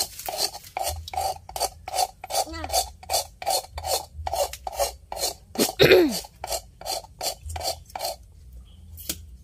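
Rapid, even rasping strokes, about three a second, of a coconut shell being scraped to clean and smooth it for use as a cup. The strokes stop about eight seconds in, and a short falling squeak-like sound comes about six seconds in.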